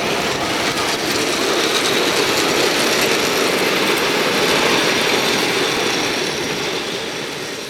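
7¼-inch gauge miniature train rolling past on its track, a steady rolling clatter of wagon wheels on the rails that fades away near the end.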